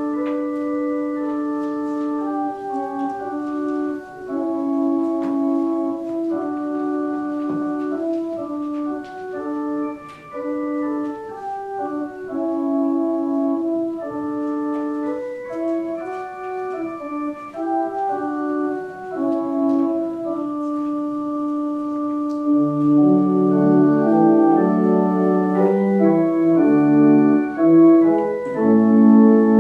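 Organ playing slow, held chords. Deeper bass notes come in about two-thirds of the way through, and the music grows louder.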